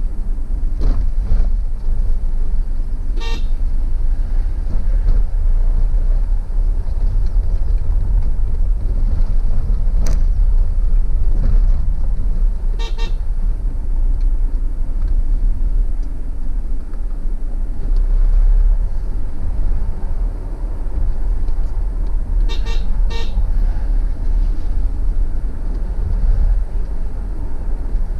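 Steady low rumble of a car driving, heard inside its cabin, with short car-horn toots about 3 seconds in, about 13 seconds in, and a quick double toot near 23 seconds.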